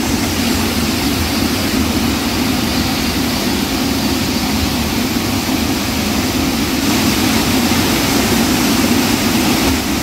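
Water rushing steadily through the open spillway gates of Somasila Dam, an unbroken roar of falling water.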